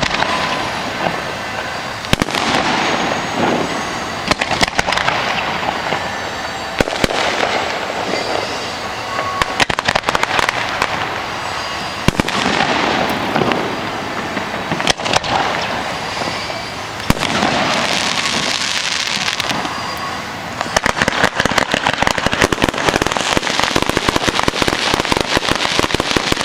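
Aerial fireworks shells bursting overhead, a sharp bang every two to three seconds, each trailing off in a hissing crackle. In the last few seconds the bursts give way to dense, rapid crackling.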